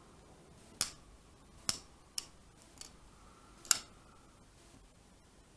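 Benchmade 710 folding knife being worked open and shut, its blade and lock giving four sharp clicks and one faint one at uneven intervals.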